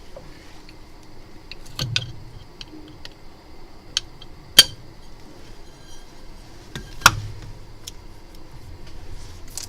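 A few sharp clicks and light taps as glass and plastic phone-screen parts are handled and seated in a rubber alignment mould. The two loudest come about halfway through and about two-thirds of the way in.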